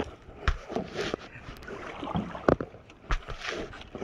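Canoe paddles stroking through lake water beside a wooden canoe, with a few sharp wooden knocks of paddle against the hull.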